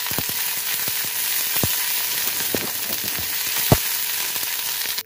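Onion paste and ginger-garlic paste sizzling in hot oil and ghee in a metal kadai, stirred with a flat metal spatula. The spatula knocks against the pan about five times, loudest near the end.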